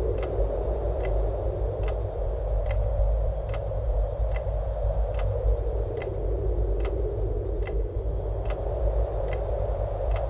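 Sharp ticks repeating evenly about every 0.8 seconds over a low, steady drone and a band of hiss.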